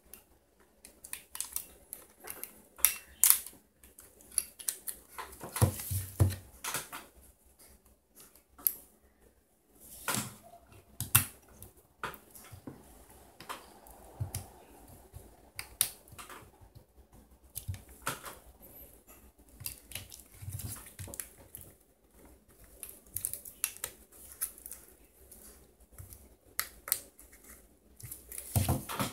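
Irregular small plastic clicks and taps from hands handling an opened mobile phone, sliding SIM cards into its slots and fitting parts during reassembly.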